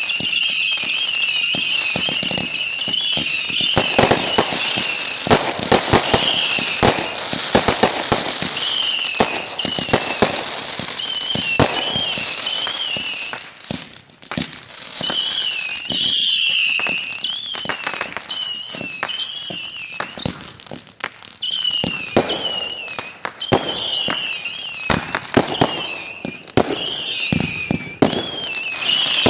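Fireworks going off in rapid succession: dense bangs and crackling, with a high wavering whistle through much of it.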